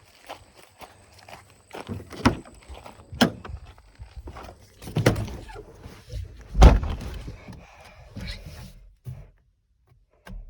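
Footsteps and a handful of sharp thunks, the loudest about two-thirds of the way in: a car door being opened and shut.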